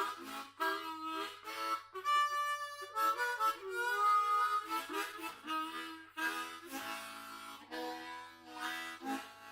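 Background music: a harmonica playing a tune of held notes and chords that change about every half second.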